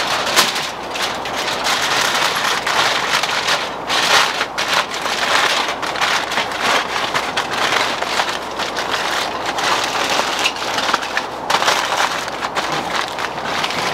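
Aluminium foil crinkling and crumpling as it is folded and crimped shut into a tight packet: a dense, continuous crackle broken by sharper crunches.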